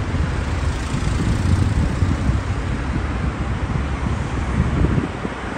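Street ambience: steady road-traffic noise with a low rumble of wind buffeting the microphone.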